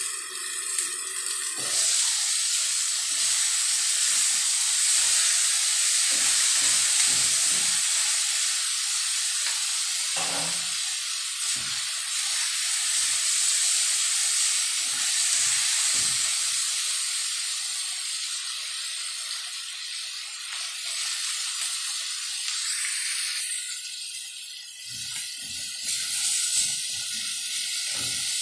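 Chicken pieces frying in a stainless steel wok, a loud steady sizzle that swells about two seconds in, with the scrapes and knocks of a spatula stirring against the pan.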